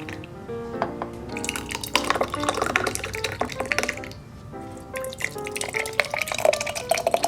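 Background music over the sound of hot blackberry jelly being poured into glass mason jars.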